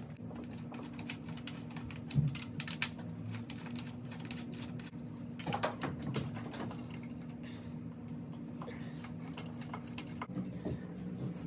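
Small metal clicks and taps of screws, washers and a hand tool as a couch's corner bracket is screwed on by hand, with a sharper knock about two seconds in and a cluster of knocks around five to six seconds. A steady low hum runs underneath.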